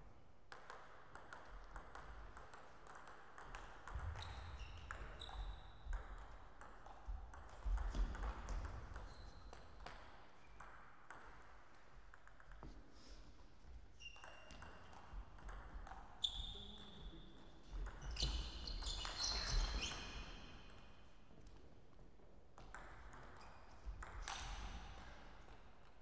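Table tennis rallies: the ball clicking sharply off the paddles and the table in quick succession, over two points. Shoes squeak briefly on the sports floor, with heavier footfalls during the two busiest stretches.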